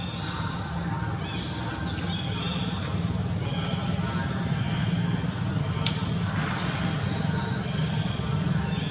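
Steady outdoor background: a high, even insect drone over a low steady rumble, with no distinct events.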